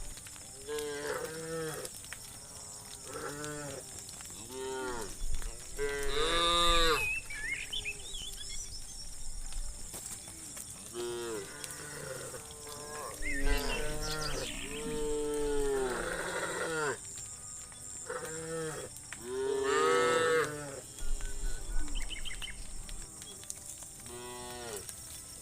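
Cattle mooing over and over, a string of calls about one every second or so, some short and some drawn out, several overlapping.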